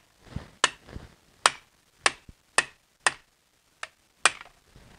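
Hammer striking a pry bar wedged against a 2004 BMW X3's CV axle, about seven sharp blows roughly half a second apart. The blows drive the axle's inner end out, compressing the circlip that holds it in place.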